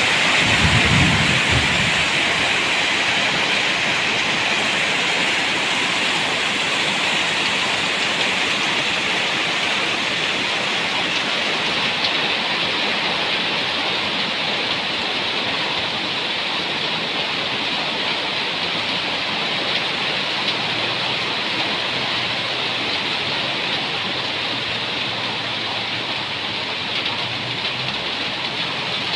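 Steady heavy rain falling, easing a little over the stretch, with a brief low rumble about a second in.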